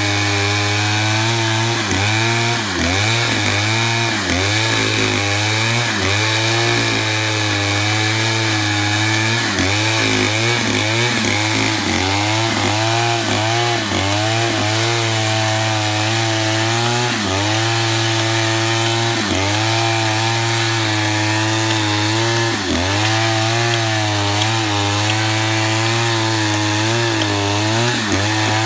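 Stihl chainsaw running at high revs while ripping a pine log lengthwise into lumber, its engine pitch dipping briefly again and again as the chain takes load in the cut.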